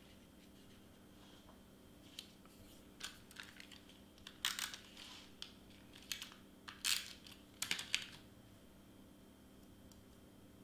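Double-sided tape runner being drawn across cardstock, with paper handled on a cutting mat: a few light clicks, then several brief rasping strokes between about four and eight seconds in.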